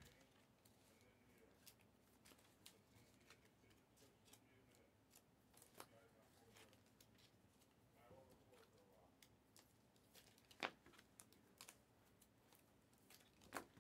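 Near silence with faint scattered clicks and taps of trading cards being handled and set down on stacks, and one sharper tap about ten and a half seconds in.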